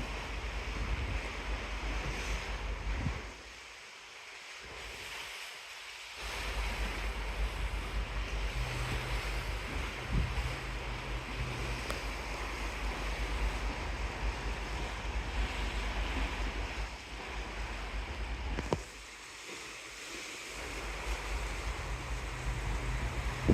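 Wind buffeting the microphone over the rush of open sea, easing off twice for a couple of seconds. A faint low hum comes and goes beneath it.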